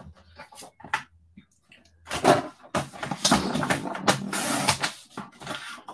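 Rustling, scraping and light knocks from craft supplies being handled, a dense stretch of it from about two seconds in to about five seconds.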